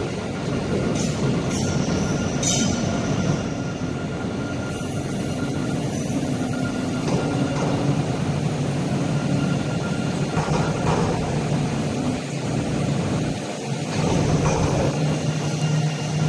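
Alstom Citadis 302 low-floor tram rolling into a station platform and slowing, with a steady rumble of wheels and traction equipment. Brief high wheel squeals come in the first few seconds as it runs over the curved track.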